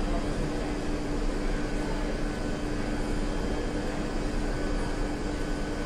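Steady hum of a London Underground Northern Line train standing at the platform, one constant low tone over an even rush of noise in the tiled station.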